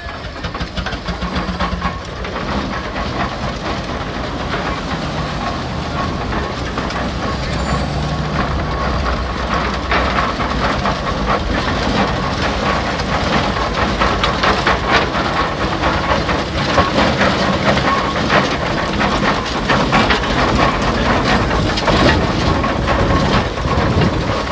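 Case steam traction engine driving past, its engine and gearing clattering and hissing steadily, growing louder as it comes close.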